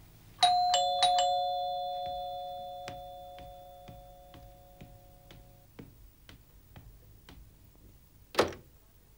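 Two-tone electric doorbell chime, a high note then a lower one, rung twice in quick succession, its tones fading away over about five seconds. Light footsteps follow, and near the end comes one short, sharp clack as the front door's lock or handle opens.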